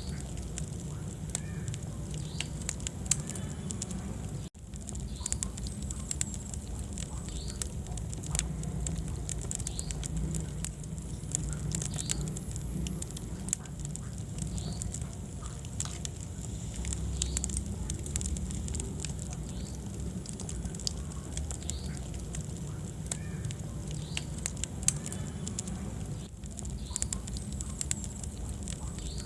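Wood fire burning in a fireplace: frequent sharp crackles and pops over a steady low rumble of the flames. The sound cuts out for an instant about four and a half seconds in.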